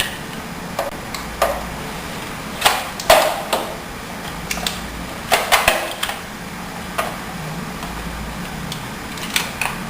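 Irregular plastic clicks, taps and knocks from handling a toy foam-dart blaster while pushing darts into its slots.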